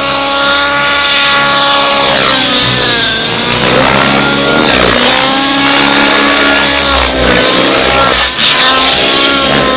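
Radio-controlled helicopter flying aerobatics: a loud whine from its motor and rotors, with the pitch dipping and climbing again several times as the rotor load changes through the manoeuvres.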